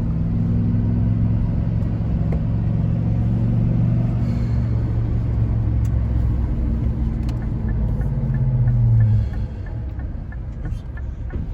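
Chevrolet Silverado pickup driving on a test run of its freshly rebuilt 4L60E automatic transmission: a steady low engine hum that eases off suddenly about nine seconds in.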